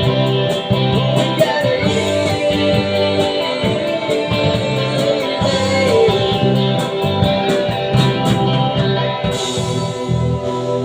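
Guitar music played live: strummed guitar chords in a steady rhythm over sustained low notes, with no singing.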